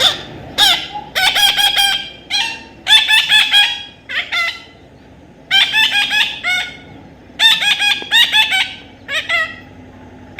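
Parrot calling in several bursts of rapid, repeated shrill squawks with short pauses between the bouts.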